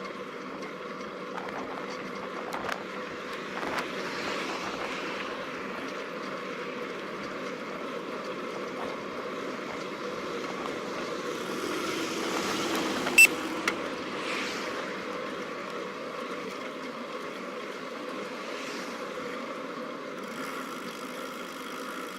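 Steady wind and tyre noise from a bicycle ride picked up by a bike-mounted camera, with a few light knocks and rattles, slow swells in loudness, and one sharp click about halfway through.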